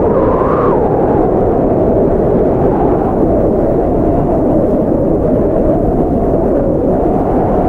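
Strong blizzard wind blowing steadily, a deep rushing with a whistling tone that rises and falls in pitch.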